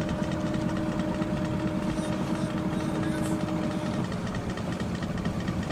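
Boat engine running steadily: a low, fast-pulsing rumble with a held hum over it that drops away about four seconds in.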